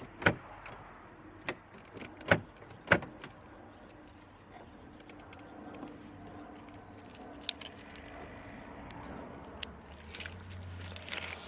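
Car door handle being pulled and tested: three loud sharp clacks within the first three seconds, then scattered lighter clicks over a low steady hum. The handle is not opening the door, as its release cable is still not working.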